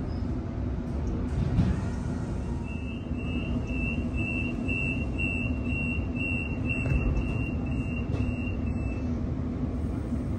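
Door-closing warning beeps on a Sydney Millennium (M-set) train: about fifteen short high beeps, a little over two a second, starting near the three-second mark and lasting about six seconds, over the steady low hum of the train standing at the platform.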